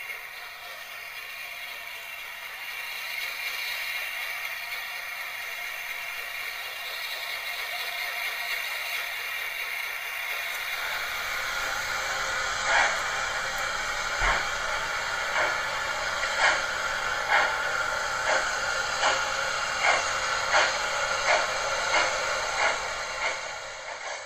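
Model railway train pulling away: a steady whir, then from about halfway a regular clicking that comes gradually quicker as the train gathers speed.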